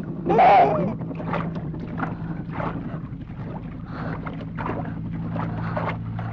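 Water splashing in irregular strokes, about two a second, as a person swims through it. A short wavering cry from a small child comes about half a second in. A low steady hum runs underneath.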